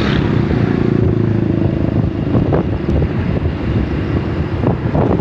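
Small motorcycle engine running steadily at road speed, with wind rushing over the microphone and a few gusts near the end.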